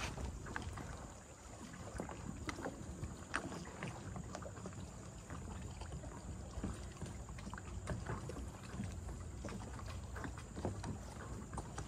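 Small wavelets lapping at a lake's edge in many irregular little splashes and ticks, over a low wind rumble on the microphone.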